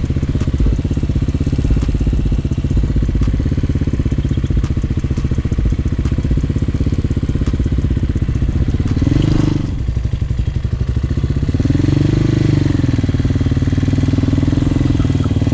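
Hawk 250cc motorcycle engine running as it is ridden, heard through a lapel mic inside the rider's helmet. It speeds up briefly about nine seconds in, drops back, then picks up again from about twelve seconds and holds higher.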